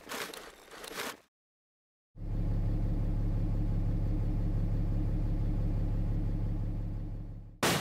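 Brief rustling, a cut to silence, then a vehicle engine running steadily as its tyre rolls slowly onto scattered tacks. Near the end a sudden loud pop: the tyre bursting on the tacks.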